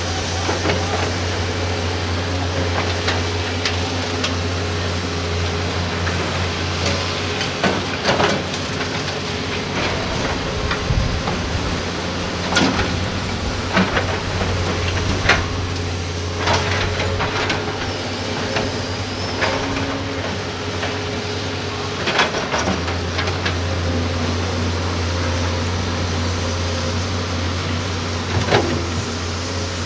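Doosan DX200A hydraulic excavator's diesel engine running under load, a steady low drone, while loads of rock and soil drop into a dump truck bed with irregular clanks and thuds. The engine drone fades for a few seconds past the middle and then comes back.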